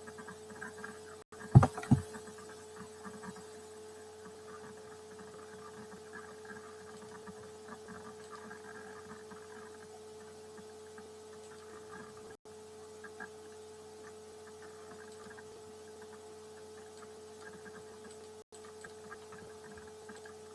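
Steady electrical hum over a faint background, with two sharp knocks close together about one and a half seconds in.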